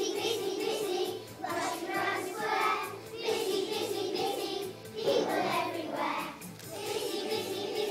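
A group of young children singing a song together over backing music, in phrases with short pauses between them.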